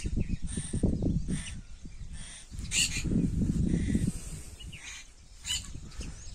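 Wind buffeting the microphone in gusts, a low rumble that swells in the first second or so and again around three to four seconds in, with birds chirping now and then.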